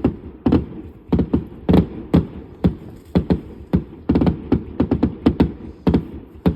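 Aerial firework shells bursting in quick, irregular succession, about three sharp bangs a second with a low rumble between them, sounding like drums.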